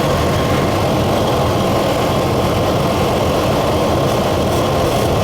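Truck engine idling steadily while it has a vacuum leak.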